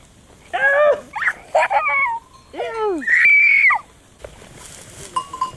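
A series of about five short, high animal cries, most falling in pitch, the last one held longer.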